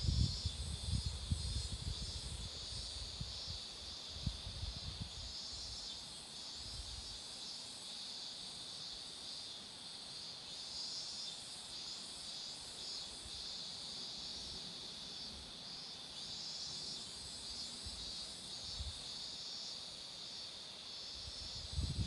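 A chorus of cicadas singing in a steady, continuous high-pitched drone with a shimmering pulse. Low rumbling thumps sound over it during the first several seconds and again near the end.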